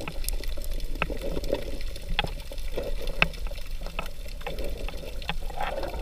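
Seawater heard with the microphone underwater: a dull, muffled wash with scattered sharp clicks.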